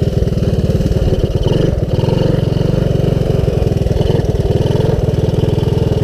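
Honda ATC200S three-wheeler's single-cylinder four-stroke engine running steadily as the machine is ridden.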